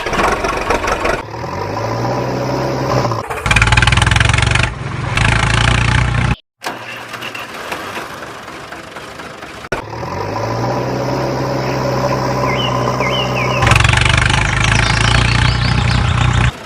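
An engine starting and revving up, then cutting off abruptly. The same start-and-rev sequence is heard again, getting louder about two-thirds of the way through.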